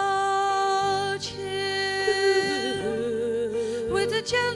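Choir singing held, wordless chords. About two seconds in, a voice with a wavering vibrato line moves above them.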